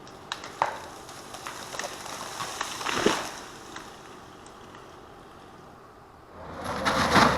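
Scattered crackling and snapping of wood and brush, strongest about three seconds in. About six seconds in, heavy machinery comes in loudly: a running engine with clattering and cracking.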